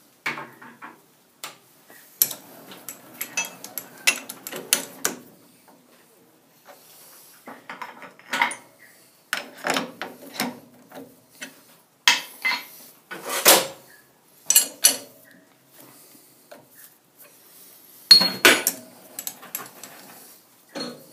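Steel tooling being handled and fitted at a metal lathe's tool post, with the lathe stopped: irregular clinks, clanks and knocks of metal on metal, the loudest about two thirds of the way through and again near the end.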